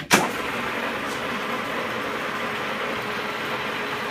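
Cincinnati Bickford Super Service drill press: a sharp clunk right at the start, then the spindle drive and gearbox running steadily at the 665 RPM setting.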